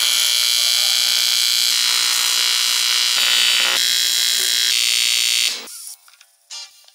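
Electric arc welding of aluminium sheet: a loud, steady, buzzing hiss from the arc that cuts off about five and a half seconds in. Background music follows.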